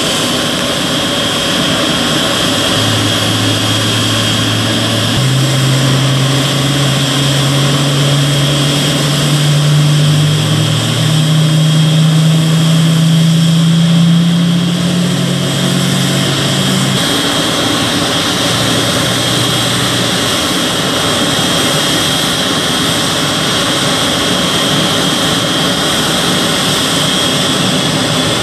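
Boeing 777 airliner's turbine whine: one steady high tone over a hiss of jet noise, which begins to rise near the end. From a few seconds in until about two-thirds through, a lower engine drone from the pushback tug steps up in pitch in stages, then cuts off.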